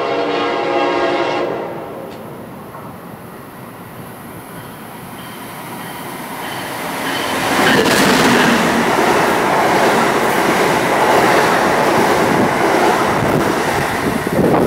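Horn on an Amtrak Siemens ACS-64 electric locomotive sounding one long chord, which ends about two seconds in. The express train then runs through the station at speed: a rush of wheels and air that builds from about six seconds in and stays loud as the locomotive and cars pass.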